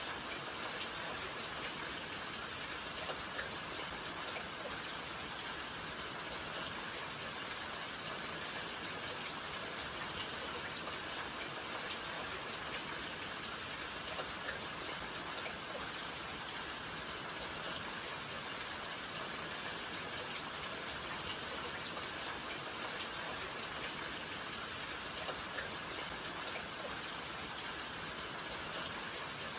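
Steady rain falling, an even hiss with scattered individual drops tapping on surfaces.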